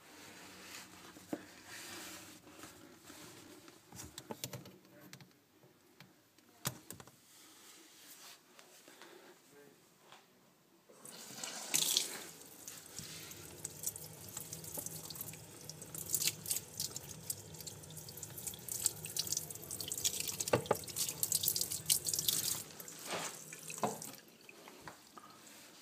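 Pull-out kitchen mixer tap running hard into a stainless steel sink, turned on about eleven seconds in and stopping near the end; this tap's faulty flexible hose leaks under the sink whenever it is open. A few knocks and handling sounds come before the water.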